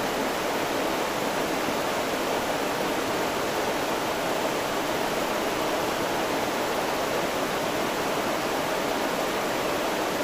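River water rushing steadily: a constant, even sound of flowing water with no breaks or changes.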